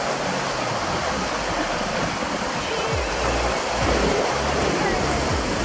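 Choppy lake water sloshing against a wooden jetty in strong wind: a steady rushing hiss, with wind rumbling on the microphone.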